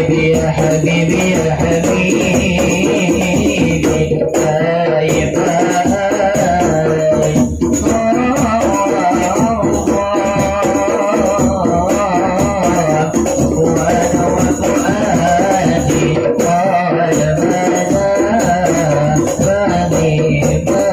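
Sholawat music playing: an ensemble with melody instruments and rattling percussion over a steady bass.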